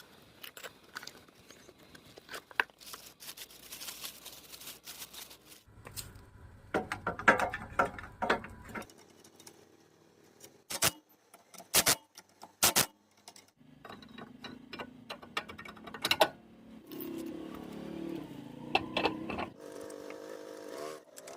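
Metal tools and parts clinking and knocking during rear wheel bearing work, with several sharp metallic strikes in the middle and a steadier mechanical sound in the last few seconds.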